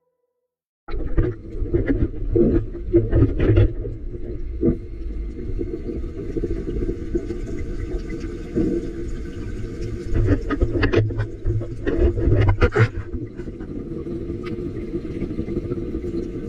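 A steady low rumble with irregular knocks and thumps, starting about a second in after a moment of silence.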